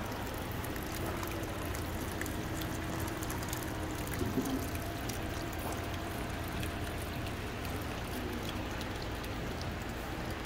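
Water trickling steadily down a small artificial rock waterfall fountain.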